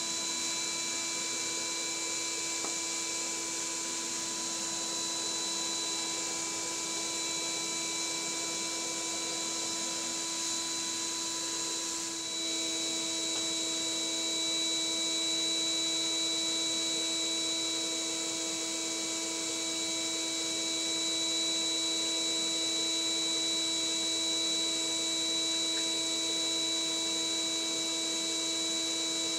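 Vacuum cleaner running steadily, a constant whine over the rush of air. About twelve seconds in its tone shifts and it gets a little louder.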